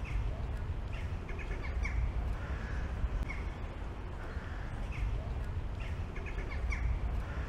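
Crows cawing in short calls, some in quick runs of three or four, over a steady low rumble of street ambience.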